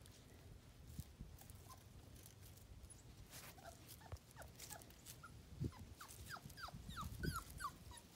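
Five-week-old puppy whimpering: a run of short, high, falling whines that starts about three seconds in and comes faster toward the end, with faint rustles and pats of dry leaves underfoot.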